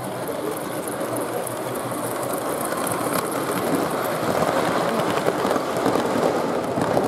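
O gauge model steam locomotive hauling a train of Pullman coaches, running along the track with a steady rolling rumble from its wheels on the rails. The sound grows a little louder about halfway through as the train passes close.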